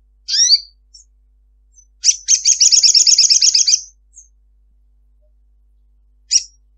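Olive-backed sunbird calling: a short call of falling high notes, then a fast, high trilling chatter of about two seconds, and another short call near the end.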